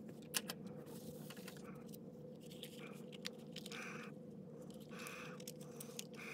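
Plastic case of a handheld oscilloscope being handled and prised apart: scattered sharp clicks and several short scraping rubs of plastic parts, over a faint steady hum.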